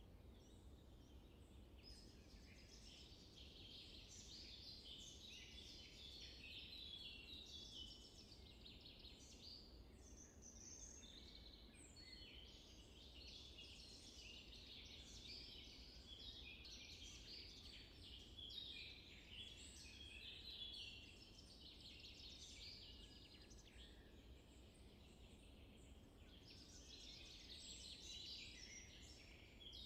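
Faint chorus of small songbirds, many short chirps and song phrases overlapping without a break, over a low hum of background noise.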